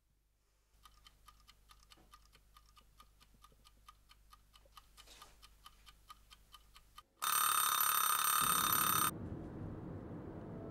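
Wind-up mechanical timer on a chrome toaster ticking quickly and evenly, growing slowly louder. About seven seconds in, the timer's bell rings loudly for about two seconds, and then a low steady rumble follows.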